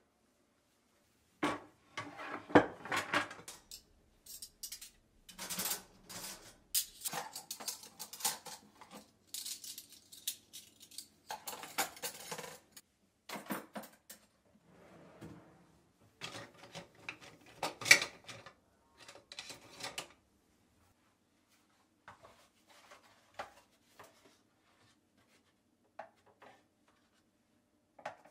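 Washed dishes and cutlery being put away from a drying rack: repeated clattering and clinking of plates, utensils and a wooden board, with knocks from a drawer. The handling is busy through the first two-thirds, then thins to a few soft knocks and taps near the end.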